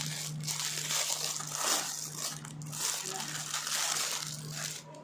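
Packaging being handled and opened, crinkling and rustling in uneven surges.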